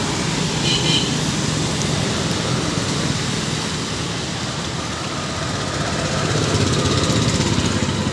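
Road traffic passing on a wet road, a steady rumble of cars and scooters that gets louder about six seconds in as vehicles go by.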